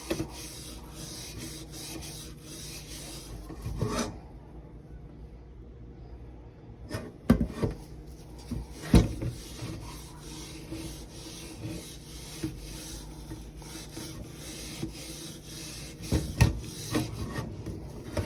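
Soap pad scrubbing the surface of a tea kettle: repeated scratchy rubbing strokes, pausing for a few seconds about four seconds in. A few sharp knocks of the kettle being handled come through in the second half.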